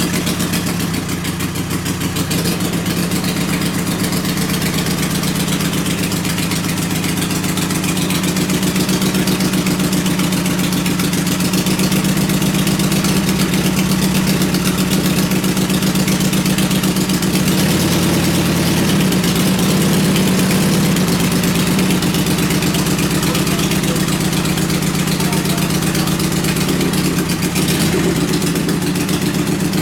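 Restored Drake midget racing engine, out of its chassis, idling steadily with rapid, even firing pulses; the engine speed swells slightly a couple of times around the middle.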